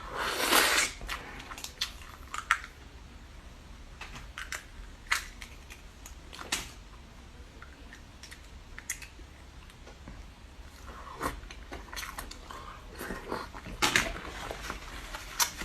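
A person eating close to the microphone: a loud slurp of soup near the start, then scattered wet chewing and mouth smacks, busier toward the end.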